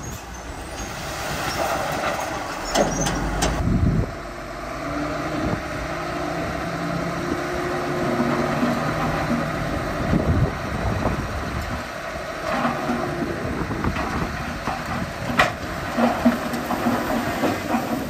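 Heavy diesel earthmoving machinery, a dump truck and a bulldozer, running under load. A rush of noise with clattering builds to its loudest about three to four seconds in, then the engines run on steadily with occasional knocks.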